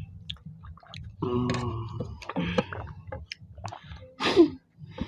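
Eating noises as khichdi is eaten by hand: scattered soft clicks and squishes, with two short muffled voice sounds, one about a second in and one near the end, over a low steady room hum.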